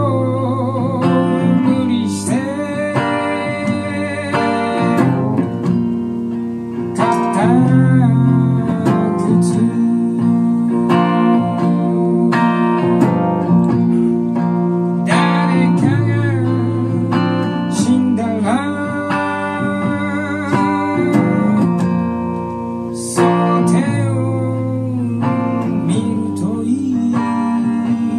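A man singing a song in phrases with vibrato, accompanying himself on a strummed hollow-body electric guitar played through an amplifier.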